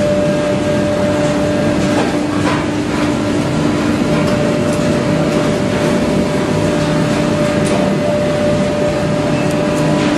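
Wood block making machine running steadily: a loud, even mechanical drone with a constant hum and a few light clicks.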